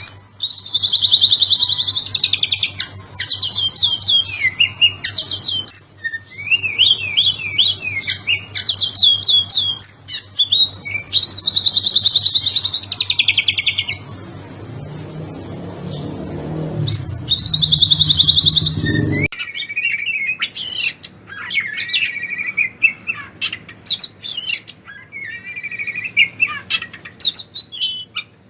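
Oriental magpie-robin (kacer) singing a fast, varied 'ngobra patah' song of rapid whistles and chopped trills. Midway the song thins while a low rumble rises. About two-thirds of the way through, the rumble and a steady low hum cut off, and the bird switches to separate short, sharp chirps and whistles.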